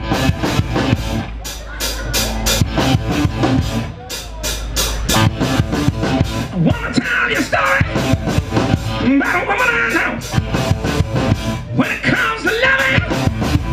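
Live rock band playing: a steady drum-kit beat with electric guitars and bass, and a singer's voice coming in about halfway through.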